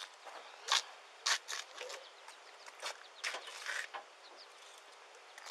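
Scattered short knocks and rustles from things being handled and moved, a few sharp ones in the first four seconds, over a faint steady outdoor background.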